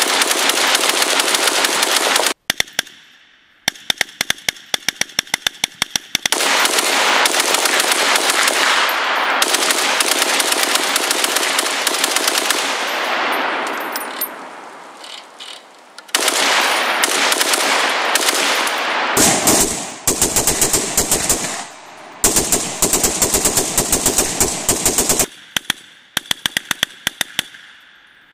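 Semi-automatic Browning 1919A4 belt-fed gun in 7.62 mm NATO, fired rapidly with a hand crank (crankfire device), in long strings of quick shots broken by short pauses. The last few seconds are more widely spaced single shots.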